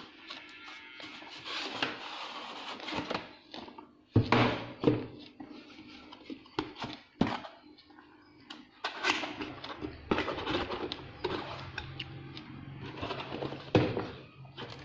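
Hands opening and handling boxed computer parts: packaging rustling, with irregular clicks and knocks and a few louder knocks.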